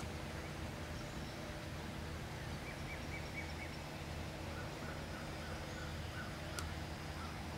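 Faint wild turkey calls in runs of short notes. A quick run of about five higher notes comes in the middle, then a longer run of lower notes, over a steady low hum. A single sharp click sounds near the end.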